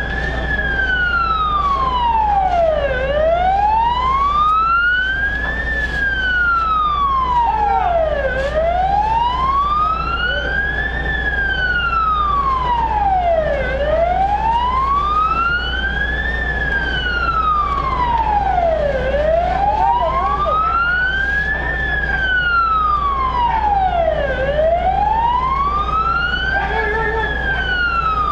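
Emergency-vehicle siren sounding a slow wail, its pitch rising and falling evenly about every five seconds, with a steady low hum underneath.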